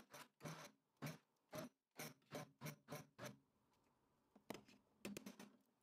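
Immersion blender pureeing cooked damson plums in a steel pot, run in short pulses about twice a second, a few more spaced out near the end; faint.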